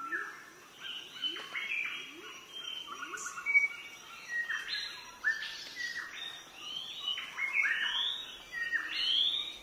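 Many birds chirping and twittering over one another in a busy chorus of short notes, many of them quick rising whistles.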